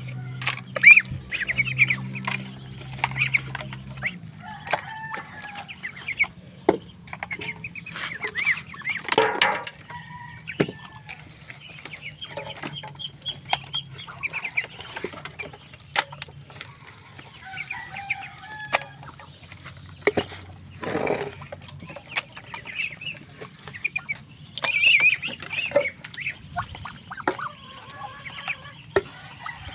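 Hungry chickens clucking at feeding time, mixed with the high peeping of small chicks and scattered sharp taps and clicks.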